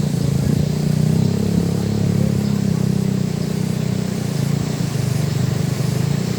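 A small engine running steadily at a constant speed, a low hum whose pitch does not change.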